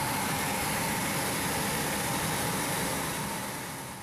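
Steady machine noise with a faint hum, fading out over the last second.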